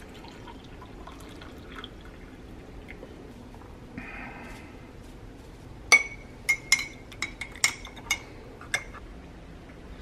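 Coffee poured from a glass carafe into a ceramic mug, then a metal spoon stirring it and clinking against the inside of the mug, about eight sharp ringing clinks over roughly three seconds.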